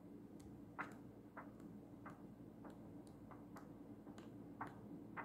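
Faint, regular ticking, about two ticks a second, over a low steady hum.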